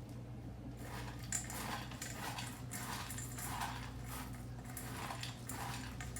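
Spoon stirring wet canned dog food into dry kibble in a bowl: a run of short, wet scraping strokes, roughly two a second, with the odd sharp click, over a steady low hum.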